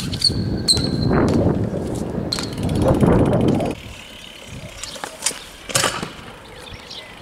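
BMX bike tyres rolling over stone paving, with a few sharp clicks, for the first three to four seconds. Then it goes quieter, and a kick scooter's wheels run on the paving with two sharp knocks close together.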